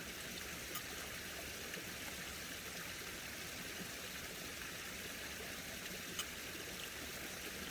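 Faint steady outdoor background hiss like running water, with two light clicks: one about a second in and one near the end.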